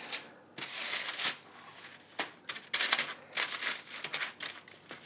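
Baking paper crinkling and rustling in irregular bursts as hands shape bread dough on a lined baking tray.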